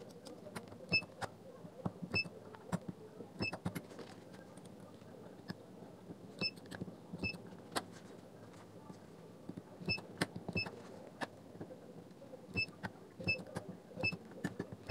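Handheld battery spot welder firing a series of irregularly spaced sharp snaps as nickel strip is welded onto 18650 lithium-ion cells. Short high beeps come in among the snaps.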